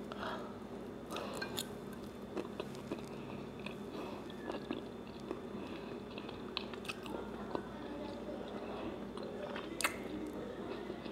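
Close-up chewing of country fried steak in gravy: wet mouth sounds and many small clicks, over a faint steady hum, with one sharper click about ten seconds in.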